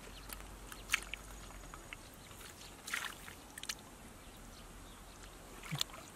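Hands sloshing and groping through shallow muddy water, with a few short splashes and drips scattered through.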